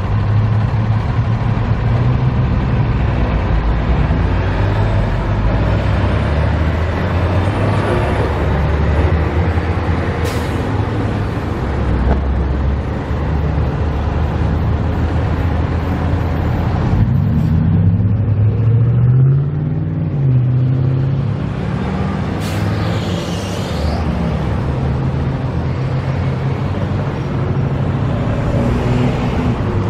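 Street traffic with a steady engine drone. About 18 seconds in, a vehicle engine revs up and down, and a short hiss of released air, like an air brake, comes twice, about 10 seconds in and again around 23 seconds.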